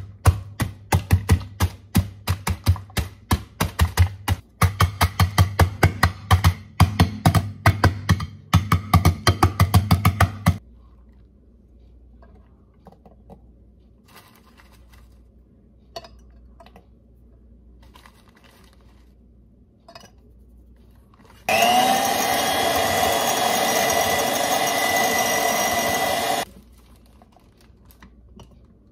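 An electric mixer motor runs loud and steady for about five seconds, starting about two-thirds of the way in with a rising whine as it spins up, while whipping cream. Before that comes about ten seconds of rapid rhythmic thumping, then a stretch of faint clicks and plastic-bag handling.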